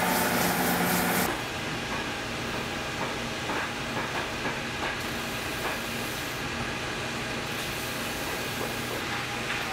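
Workshop machinery running. A motor with a steady hum cuts off about a second in, leaving a steady hiss with a few faint clicks.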